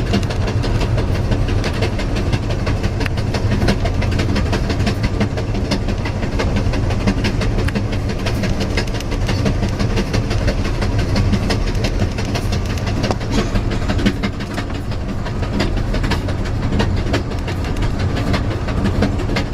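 Amtrak Southwest Chief passenger train running over old jointed rail: the wheels clickety-clack over the rail joints in a steady run of clicks over a continuous low rumble.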